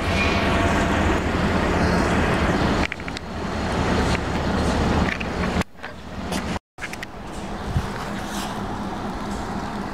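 Two diesel-electric road-switcher locomotives, a GP38-3 and a GP40, running with a steady low engine rumble as they move slowly along a yard track. The sound drops out abruptly a few times and goes silent for a moment about two-thirds of the way in. After that it is quieter and steadier.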